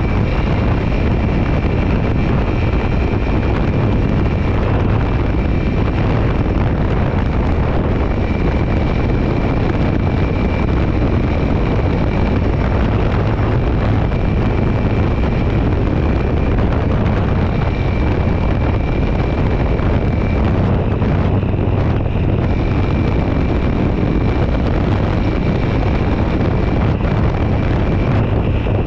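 Dirt bike engine running steadily at road speed in the upper gears, mixed with heavy wind noise on the microphone.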